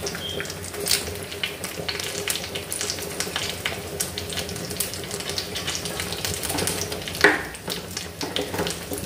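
Aviyal, vegetables in coconut paste, sizzling and crackling steadily as it cooks in a pan on the stove. There is a louder knock about seven seconds in.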